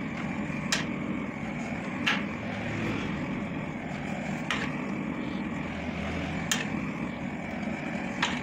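Blowtorch flame burning with a steady rush while a radiator is soldered, with five sharp metallic clicks, one every second or two, as the soldering tool taps against the radiator's metal header.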